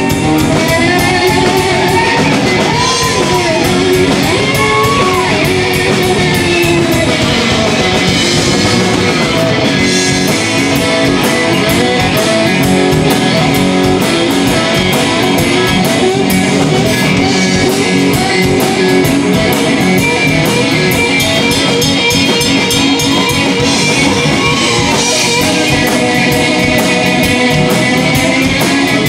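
Live blues-rock band playing loud: an electric guitar leads with bending, gliding notes over bass guitar and drums.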